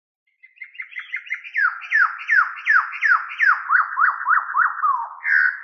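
Electronic whistling sound effect over a title card: a rapid run of short descending chirps, quickening to about six a second at first and then settling to about three longer downward sweeps a second.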